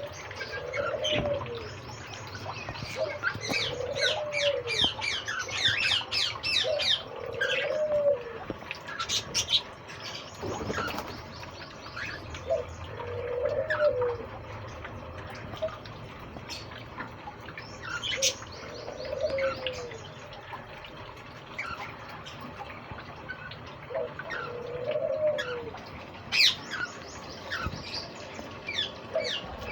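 A flock of caged birds chirping and twittering, with a low cooing call repeating about every four seconds.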